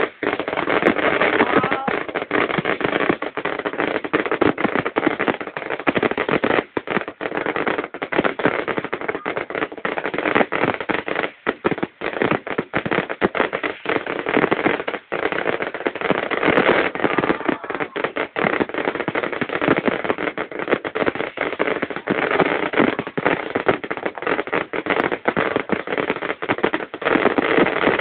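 Fireworks going off without pause, a dense run of rapid bangs and crackles.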